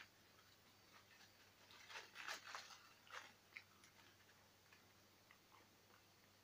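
Faint chewing of a mouthful of pizza: soft, irregular crunches and mouth clicks, busiest about two to three seconds in.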